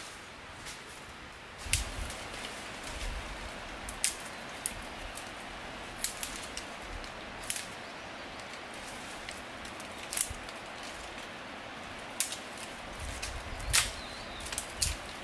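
Dry twigs and vines giving sharp snaps and cracks at irregular intervals, about a dozen, as undergrowth is pushed through and pulled at, with rustling and footsteps in leaf litter over a steady forest background hiss.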